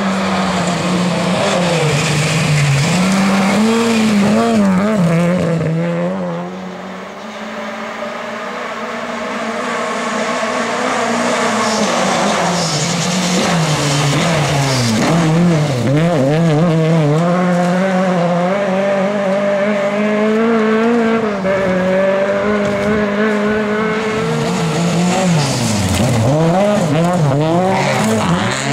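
Lada rally cars' four-cylinder engines revving hard as they race past on a gravel stage, pitch climbing and dropping again and again through gear changes and lifts off the throttle. Gravel and tyre noise come in as the cars slide through.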